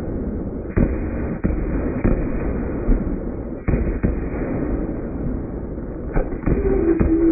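Fireworks finale: aerial shells bursting in a rapid string of sharp bangs over a continuous low rumble of overlapping booms. A steady pitched tone sets in near the end.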